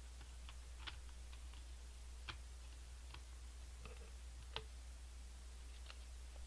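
Faint, irregular clicks from the buttons of a handheld mobile phone being pressed, about a dozen of them at uneven intervals, over a steady low electrical hum.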